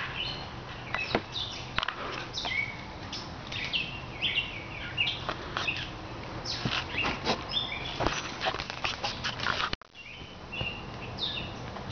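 Songbirds chirping and singing in woodland, with scattered sharp clicks and knocks mixed in. The sound drops out briefly a couple of seconds before the end, then the birds carry on.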